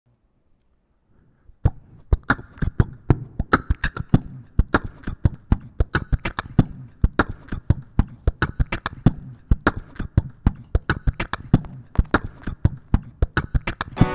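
Percussive beat knocked and slapped on the body of an acoustic guitar, a steady rhythm of deep thumps and sharper taps, starting about a second and a half in.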